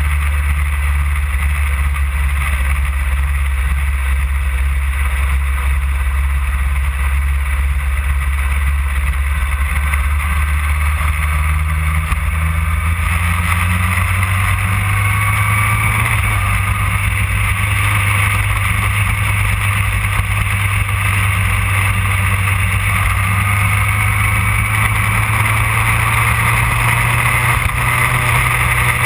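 2008 Yamaha R1's inline-four engine running steadily at road speed, heard from a camera mounted on the bike. The engine note steps up a little about halfway through and then rises slowly toward the end.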